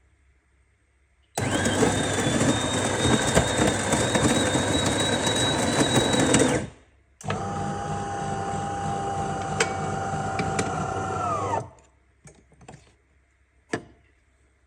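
De'Longhi Eletta Explorer bean-to-cup coffee machine running in two loud stretches. The first lasts about five seconds with a steady high whine. After a short gap, the second lasts about four seconds with a lower whine that drops in pitch as it stops. A few faint clicks follow.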